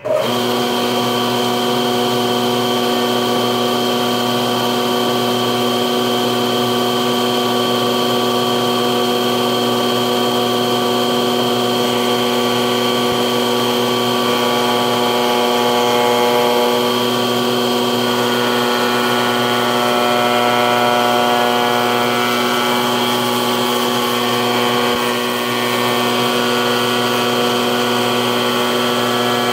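Shop Fox molder running steadily, its cutterhead milling a full-round profile into a curved wooden blank that is fed through by hand. The sound is a constant pitched machine drone over a broad hiss, with its tones shifting a little partway through as the cut goes on.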